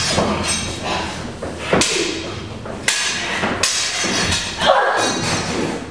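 Staged broadsword fight: blades clashing in sharp strikes and feet thudding on a wooden stage floor, with several loud impacts spread through the few seconds.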